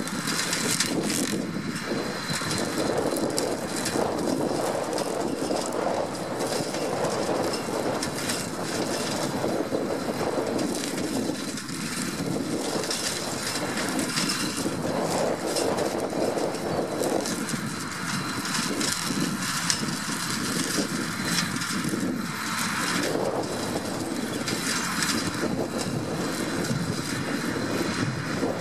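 New Holland 8360 tractor's six-cylinder diesel running under load while its boom-mounted flail hedge cutter chops through a hedge. A steady mechanical din with a constant hum underneath.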